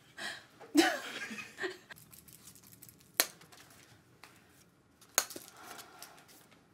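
A short burst of stifled laughter and snickering in the first two seconds, then quiet broken by two sharp clicks about two seconds apart.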